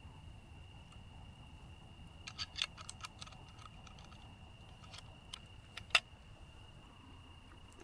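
Scattered small sharp clicks over a faint, steady high tone: a quick cluster about two to three seconds in, then a few single clicks, the loudest about six seconds in.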